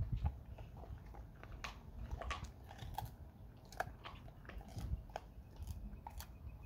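A dog gnawing and chewing a beef steak bone, with irregular sharp crunches and clicks of teeth on bone.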